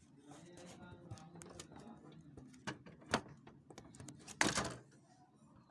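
Hands working on the plastic parts of a Xerox WorkCentre 5855 document feeder: a few sharp clicks, then a brief louder rustling scrape a little past the middle.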